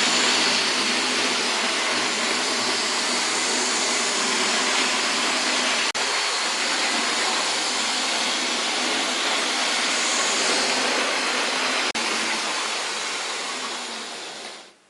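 A loud, steady rushing hiss with a faint low hum under it. It drops out for an instant twice, about six seconds apart, and fades away near the end.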